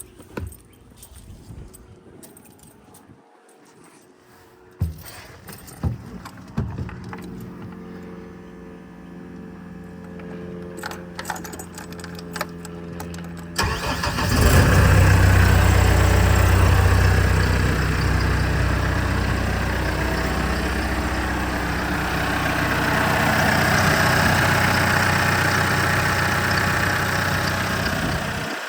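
Genie telehandler's engine: a few clicks over a faint hum, then about halfway through the engine cranks, catches at once and keeps running loudly. It now starts after a blown starter/ignition fuse was replaced, curing the no-crank fault.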